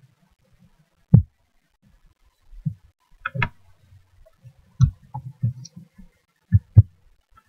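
Scattered clicks and soft thumps of a computer mouse and keyboard in use, about eight in all at uneven intervals, with a quick pair near the end.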